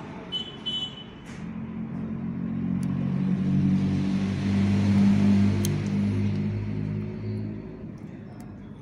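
A motor vehicle driving past: its engine rises over a few seconds, is loudest about halfway through, then fades away.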